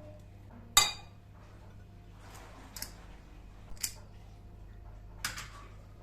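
Light clinks and taps of kitchenware being handled: one sharp clink with a brief ring about a second in, then three softer taps spread over the following seconds, over a steady low hum.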